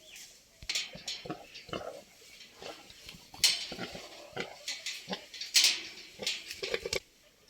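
Pigs grunting and squealing in irregular bursts, with some clattering; it stops abruptly near the end.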